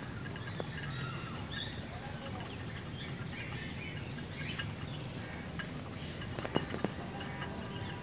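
A small flock of young hens and roosters, about four months old, clucking softly while pecking at scattered grain. A few sharp clicks come late on.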